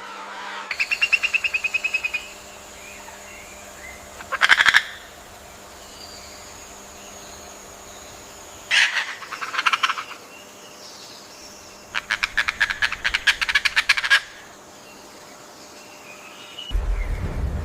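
Animal calls in four bouts of rapid pulsed trills, each a quick train of repeated notes, with pauses of a few seconds between them and a faint steady background underneath.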